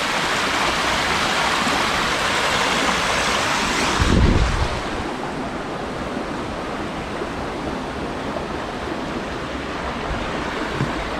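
Steady rush of falling water. About four seconds in it drops suddenly to a duller, quieter rush, with a brief low buffet of wind on the microphone.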